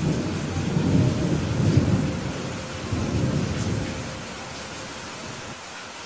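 Steady heavy rain, with a low rolling rumble of thunder that starts at once, swells over the first two seconds and dies away about four seconds in.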